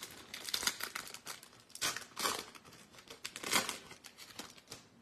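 Foil wrapper of a Topps Chrome trading-card pack crinkling and tearing in short, irregular rustles as a pack is opened by hand.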